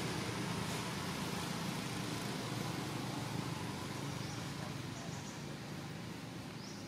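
Steady outdoor background noise that slowly fades, with a few faint high chirps about four, five and six and a half seconds in.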